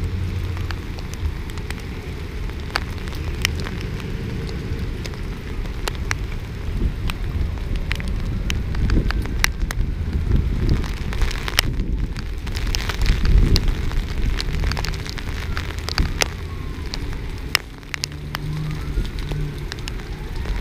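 Heavy rain falling, with many sharp clicks from drops striking the camera, over a steady low rumble.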